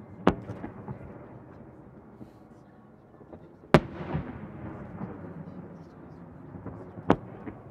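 Aerial fireworks shells bursting: three sharp bangs about three and a half seconds apart, each followed by a short echo.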